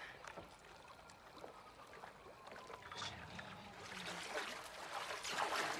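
Soft water lapping and small splashes against a floating board on calm open water, growing a little louder near the end.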